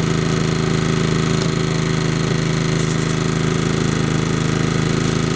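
Westinghouse WH2400i inverter generator running steadily with no load, an even engine hum.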